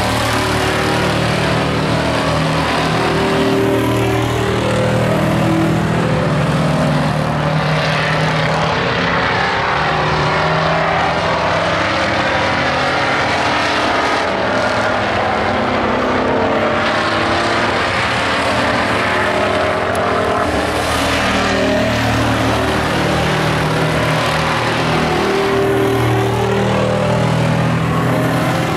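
Engines of several pickup-based stock race trucks running at race speed, a continuous mix of engine notes rising and falling as the trucks come past and go around the oval.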